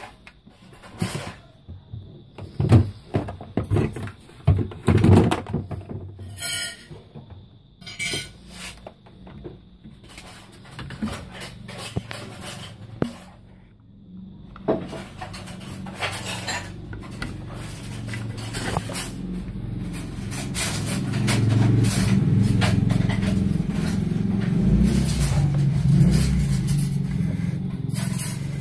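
Irregular clicks, knocks and clatter from handling a homemade track saw, a circular saw on an aluminium rail. A steady low rumble sets in about halfway and grows louder over the last third.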